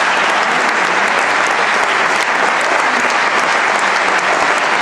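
Audience applauding: dense, steady clapping that neither builds nor fades.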